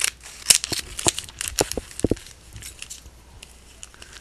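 Plastic wrapping of a trading-card value pack crinkling and crackling as it is cut open with scissors and handled. A rapid run of sharp crackles fills the first two seconds, then thins out to scattered softer ones.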